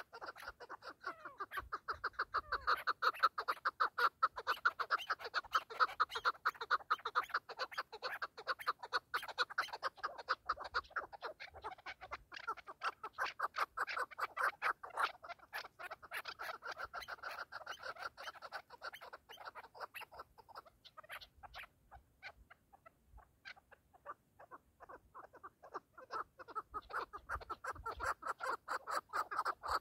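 Chukar partridges calling: a fast, continuous run of clucking 'chuk' notes. The calling dies away for a few seconds about two-thirds through, then starts up again near the end.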